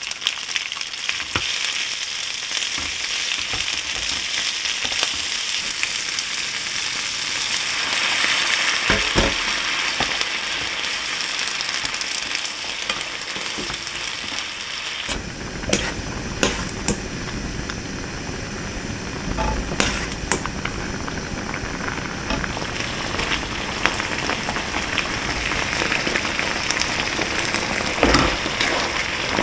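Food sizzling as it fries in a hot pan, with a few sharp knocks of a utensil. A lower rumble joins about halfway through.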